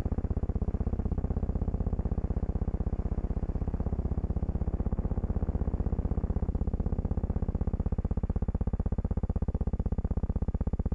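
Steady low buzzing hum that pulses rapidly and evenly, many times a second, without change.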